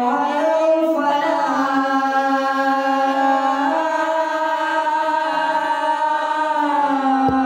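A man's solo voice chanting the azan, the Islamic call to prayer, holding one long ornamented phrase that steps slowly up and down in pitch. It breaks off briefly near the end for a breath.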